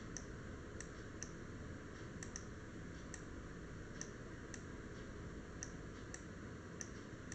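Faint, irregular clicking, about two clicks a second, from a computer pointing device used to write on screen, over a low steady room hiss.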